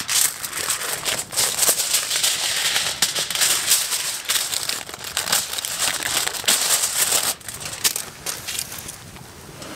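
Aluminium foil being pulled out and smoothed flat by hand, crinkling loudly with many sharp crackles. It quietens to a few faint crinkles about seven seconds in.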